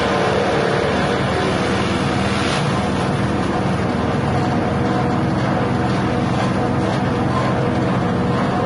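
Elephant-grass chopper machine running steadily, its motor driving the cutting blades, with grass stalks being fed in and chopped near the start.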